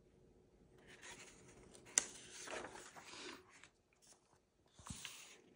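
Pages of a thin picture book being turned: paper rubbing and sliding, with a sharp click about two seconds in and a shorter rustle near the end.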